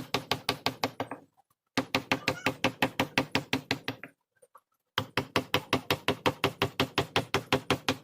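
Mallet rapidly tapping a carving chisel into hardwood, about six sharp knocks a second, each with a short ringing tone. The knocking comes in three runs, with brief pauses after about a second and a half and again after about four seconds.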